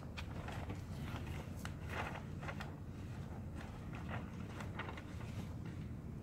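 Irregular scuffs and light knocks, like footsteps and handling on the ground, over a steady low rumble.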